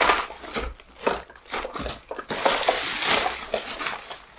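Shopping bag crinkling and rustling as it is handled, in a string of short crackles with a longer, denser rustle about two and a half seconds in.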